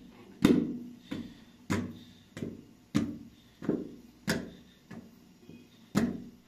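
Sharp knocks at a steady beat, about three every two seconds, each ringing briefly before it fades.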